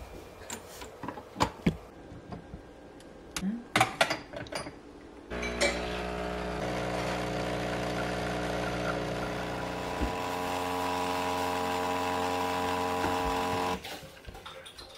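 A few clicks and knocks as the portafilter is fitted to a DeLonghi espresso machine, then the machine's pump running with a steady hum for about eight seconds while espresso pours, cutting off suddenly near the end.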